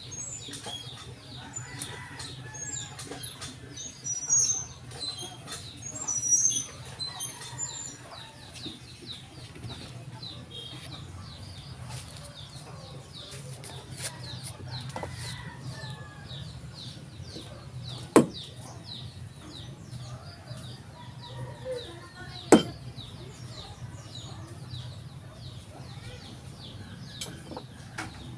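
Birds chirping throughout over a steady low hum. Twice in the second half there is a sharp, loud click or clack.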